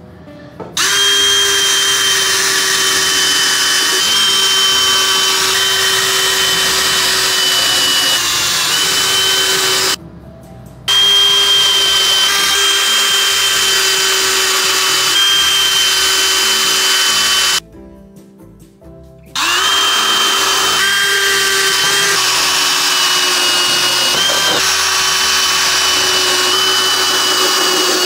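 DeWalt 20V cordless drill running at steady speed and drilling into pine 2x6 boards, with a steady whine that sags slightly in pitch under load. It runs in three long stretches with two short pauses, about ten and eighteen seconds in.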